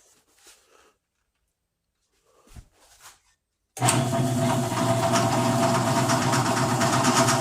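A couple of faint knocks, then about four seconds in an electric drill motor starts and runs steadily with a constant hum. The old drill bit it turns is spinning against steel without cutting into it.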